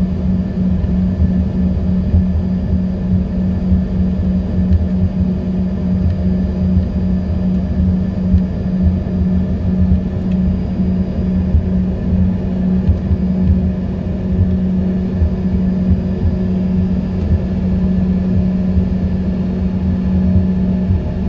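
Inside the cabin of an Embraer E145 with its rear-mounted Rolls-Royce AE 3007 turbofans running at low power before takeoff: a steady drone with a constant low tone over a low, slightly uneven rumble.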